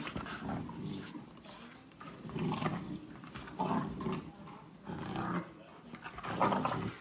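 A dog growling in about five short bursts, each lasting roughly half a second.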